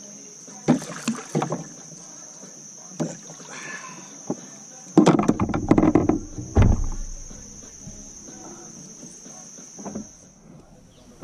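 A hooked catfish being landed and handled in a plastic kayak: knocks and thrashing against the hull, loudest for about two seconds around the middle, with a few lighter knocks earlier. Under it runs a steady high buzz of insects that fades out near the end.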